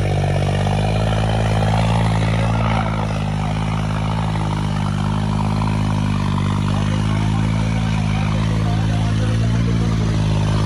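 Tractor's diesel engine held at full throttle, running steadily at high revs under heavy load as it drags a weighted implement through loose dirt in a pulling contest.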